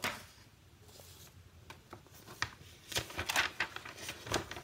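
Sheets of paper rustling as they are handled and flipped: one rustle at the start, then several short rustles in the last two seconds.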